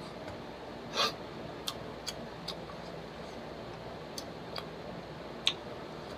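Chewing crispy fried chicken: a handful of short wet clicks and crunches at irregular spacing, the loudest about a second in and near the end, over a steady low background hum.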